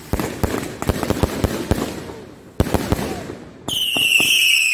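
A 120-shot firework cake firing a fast run of sharp bangs and crackles, then after a short lull a fresh volley about two and a half seconds in. Near the end a loud, steady high-pitched whistle sets in and holds.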